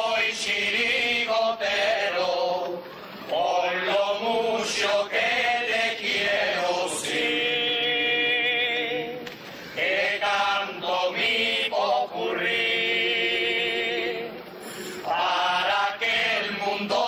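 Carnival chirigota's male chorus singing together in phrases, with long held notes that waver in pitch.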